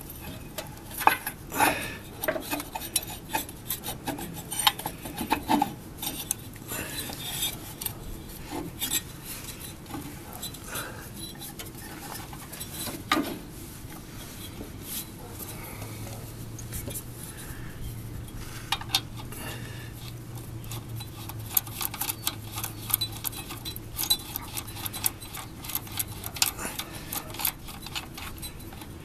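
Intermittent metal clinks, taps and scrapes of hand tools and steel parts as a belt pulley, its bushing and bolt are refitted onto a lawn tractor's keyed drive shaft.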